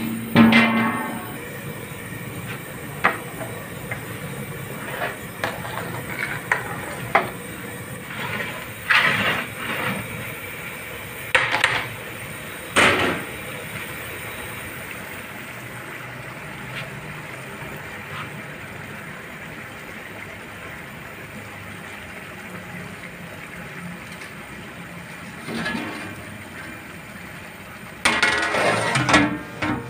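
Large aluminium pot of rice boiling over high heat: a steady rushing noise, with scattered metallic clinks and knocks, the loudest about half a second in and a dense cluster near the end.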